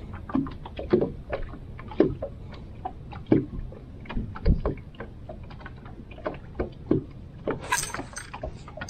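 Irregular knocks and thuds on a small fishing boat, one to three a second, with a short hiss near the end.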